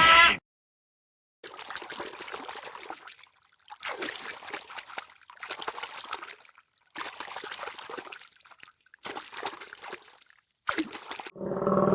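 A loud pitched call cuts off abruptly at the very start, followed by about six short bursts of trickling, splashing water, each a second or so long with silent gaps between.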